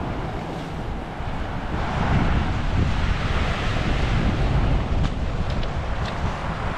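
Wind buffeting the microphone with a low rumble, over the wash of sea surf, swelling about two seconds in.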